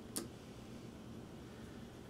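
A hand screwdriver turning a small mounting screw, with one sharp click about a fifth of a second in over a faint steady hum.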